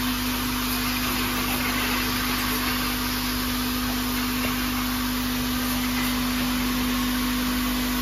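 Rotary feeding turntable of an automatic flat-bottle filling and capping machine running: a steady motor hum with one even tone over a constant hiss.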